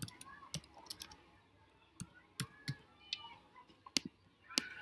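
Typing on a computer keyboard: about a dozen short, separate key taps, unevenly spaced.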